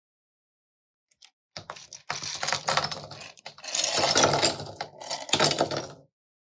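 Small plastic building bricks poured from a bag onto a hard tabletop, clattering in about three bursts of rattling clicks before they settle.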